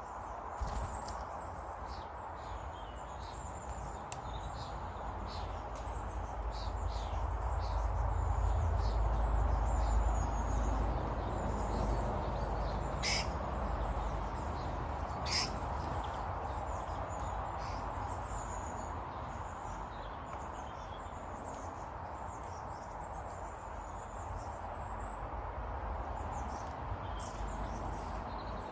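Small birds chirping and twittering over and over above a steady hiss and low rumble, which swells in the middle. Two sharp clicks fall about two and a half seconds apart near the middle.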